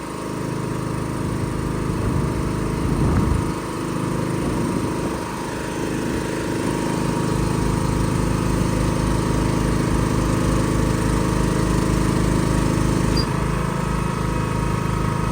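An engine running steadily. It grows louder over the first couple of seconds, and a low, even throb sets in about halfway through.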